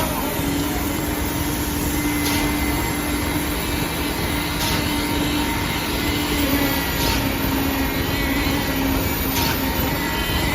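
Concrete pump truck running steadily with a constant hum, and a faint knock about every two and a half seconds.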